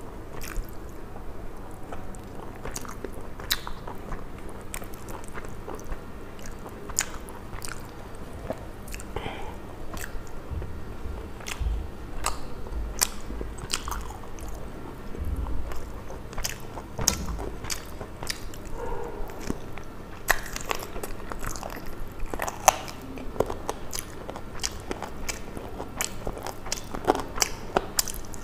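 Close eating sounds: a person chewing and biting a curried chicken leg piece eaten by hand, with many small wet clicks and smacks scattered throughout.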